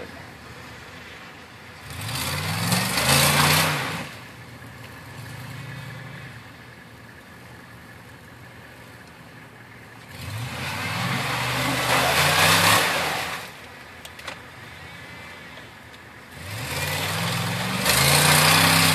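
A stuck Dodge Durango's engine revving hard three times, its pitch climbing with each rev, with a broad hiss of spinning tyres; between the revs the engine drops back to a low running sound. The SUV is bogged in snowy, rutted mud and cannot drive out.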